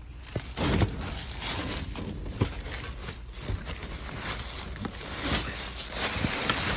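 Hands rummaging through plastic bags, bubble wrap and cardboard in a dumpster: irregular rustling and crinkling with a few short knocks.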